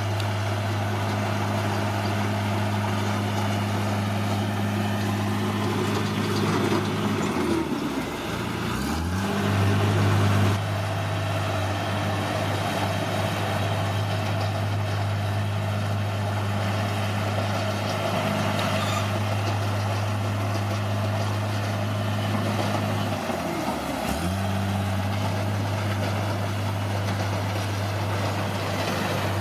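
Bulldozer's diesel engine running steadily with a low drone. Twice its speed drops sharply and then picks back up.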